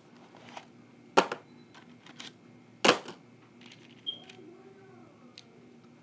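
Sharp clicks and knocks from a hand handling the recording device close to its microphone. Two loud knocks come about a second and three seconds in, with fainter ticks between, over a faint steady hum.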